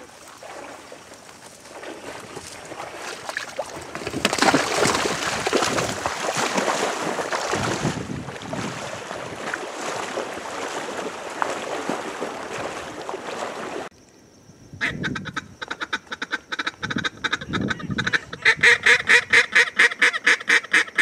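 A long stretch of rough, noisy rustling that cuts off suddenly about 14 seconds in, then loud, evenly paced duck quacks: a few short groups at first, and near the end a fast run of about six quacks a second.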